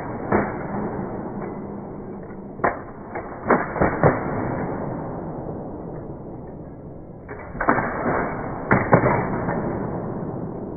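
Wooden drill rifles spun and caught by an honor guard drill team: sharp clacks and slaps of the stocks hitting gloved hands, in quick clusters, with a lull in the middle.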